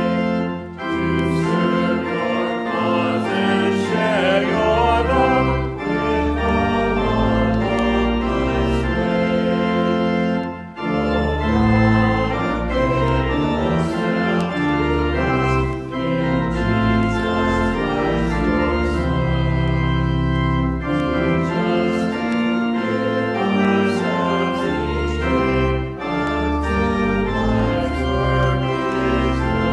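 Church pipe organ playing slow, sustained chords that change every second or so, with brief breaks between phrases.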